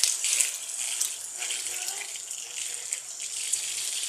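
Water rushing steadily through a washing machine's inlet solenoid valve energised straight from the mains: the valve has opened and is letting water through, so it works when powered.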